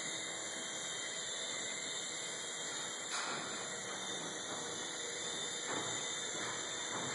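Small electric coaxial RC helicopter (the Hoot) running in flight: a steady high whirring from its motors and twin counter-rotating rotors, with a brief knock about three seconds in.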